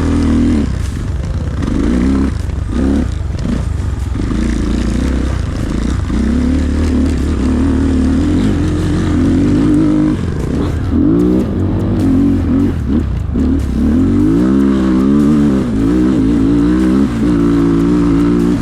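Chinese enduro motorcycle engine running and being revved up and down, its pitch rising and falling again and again, with quicker throttle changes in the second half.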